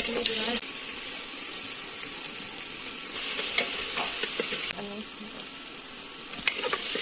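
Food sizzling in hot oil in a pan while being stirred, with light clicks of the utensil against the pan. The sizzle swells louder about three seconds in and eases back just before five seconds.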